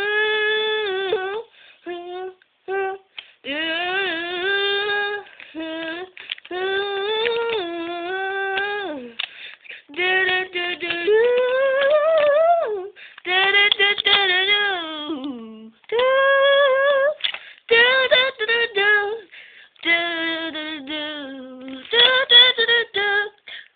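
A child's high voice singing a wordless "do-do-do" tune, with held notes that slide up and down and short breaks between phrases.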